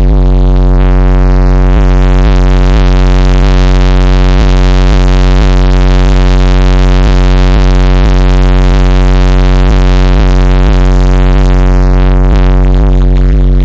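Car-audio subwoofer system playing bass at extreme level, heard from inside the vehicle's cabin. It is a steady, heavily distorted low drone with a regular ticking running through it, loud enough to overload the recording.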